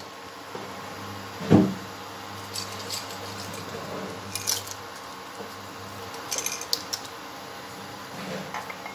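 Kitchen handling sounds at a pan of pasta in boiling water: one sharp knock about a second and a half in, then a few light clinks and taps over a steady low hum.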